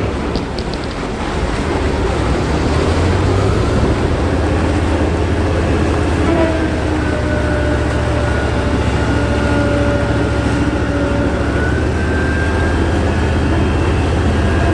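Heavy diesel engine of an amphibious bridging vehicle running steadily under load as it drives through the water, a deep steady hum over the rush of churning water. A faint higher whine comes and goes in the middle.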